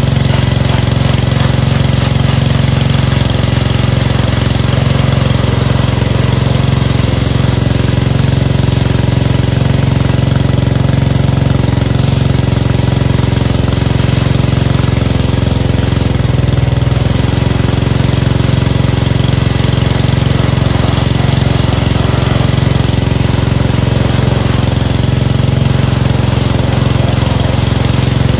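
Gas pressure washer's small engine running at a steady speed.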